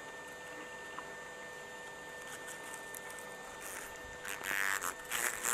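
Asian giant hornet buzzing while gripped in forceps: a faint, steady buzzing hum, with rustling handling noises in the last second or so.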